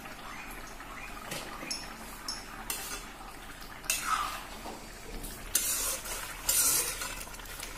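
A metal spatula clinking and scraping against a metal kadai as a thick curry is stirred: a few light clinks at first, then longer scrapes in the second half.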